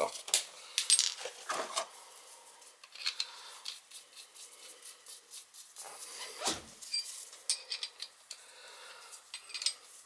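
Small steel hand tools and brass oil-burner parts clinking and tapping against each other in gloved hands, in short irregular clicks with brief metallic rings.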